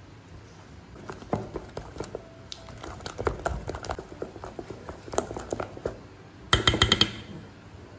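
Wooden spoon stirring thick, wet banana batter in a stainless steel bowl: irregular soft knocks and scrapes against the bowl, with a louder quick clatter of knocks near the end.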